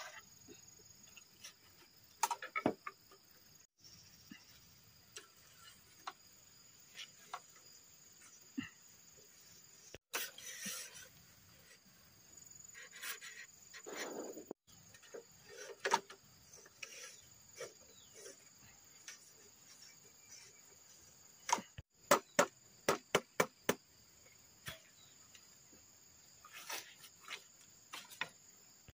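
Bamboo poles and split bamboo strips knocking and clattering as they are handled and laid out, including a quick run of about seven sharp knocks about three-quarters of the way through. A steady high insect trill runs underneath.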